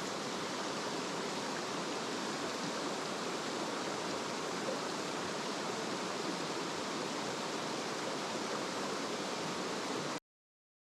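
Rushing water of a mountain stream, a steady even rush that cuts off suddenly near the end.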